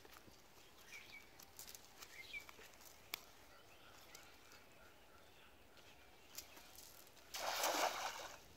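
A thrown cast net hitting the river surface with one splash, about a second long, near the end. Before it there are faint rustles of bare feet on grass and a few short bird chirps.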